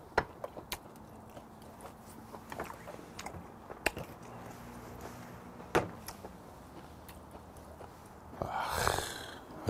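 Scattered sharp clicks and knocks of a glass soju bottle and tableware handled on a table, with one louder knock a little before the six-second mark as the bottle is set down. A short breathy rush of noise follows near the end.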